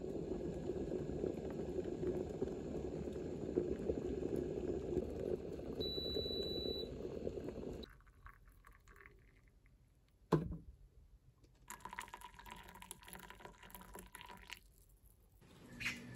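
Cocklebur tea boiling in a glass kettle: a steady bubbling that cuts off suddenly about eight seconds in. Then a single sharp knock, and a few seconds of tea pouring into a ceramic pitcher.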